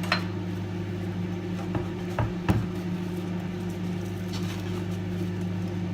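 Microwave oven running with a steady low hum, with a few light knocks and taps about two seconds in.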